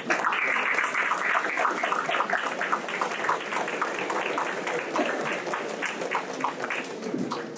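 Audience applauding, loudest at the start and fading gradually toward the end.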